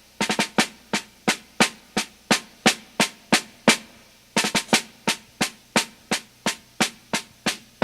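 Drum track, snare-like strokes at about three a second with a few quick rolled clusters, like a marching cadence opening a piece of music.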